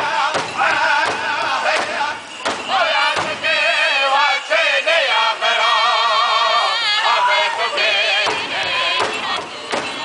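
Powwow drum group singing in high, wavering voices around a large powwow drum. The drum is struck in the first three seconds, drops out while the voices carry on, and comes back in about eight seconds in.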